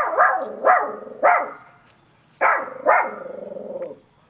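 Small pekingese–chihuahua mix dog barking in alert, watchdog fashion: about four barks, a short pause, then two more, the last one drawn out.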